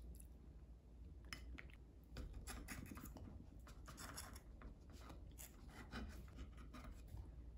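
A table knife sawing through a slice of toast on a wooden plate in short scratchy strokes, the blade scraping the plate. The strokes start about a second in and come in several clusters.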